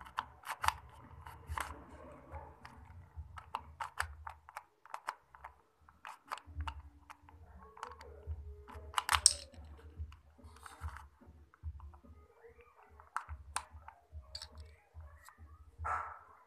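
Plastic Rubik's cube being turned by hand: irregular sharp clicks and clacks as the layers are twisted, the loudest cluster about nine seconds in, over low rumble of hands on the phone's microphone.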